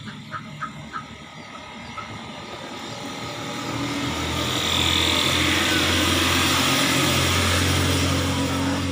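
A motor vehicle's engine grows steadily louder from about three seconds in and runs loud and steady close by. It eases off slightly near the end. Faint evenly spaced clicks are heard in the first second.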